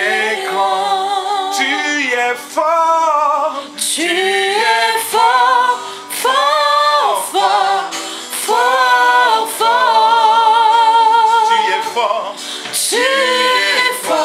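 Worship song sung into a microphone: a man's voice with women's voices, in long held notes with vibrato.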